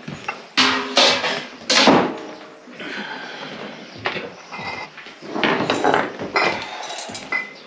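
Clanking and clinking of metal and glass kitchenware as it is carried and set down: a stainless steel pot and glass bottles in a cardboard box. A quick run of loud clatters comes in the first two seconds, then lighter knocks and short metallic rings near the end.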